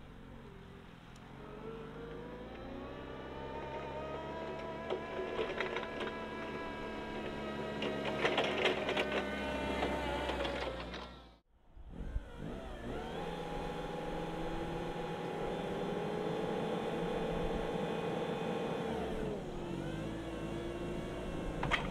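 Jungheinrich TFG 320s LPG forklift's engine running and rising in pitch as the truck drives up over block paving, with rattling in between. After a brief break, the engine runs at steady raised revs to drive the hydraulics extending the triplex mast, then drops in pitch near the end.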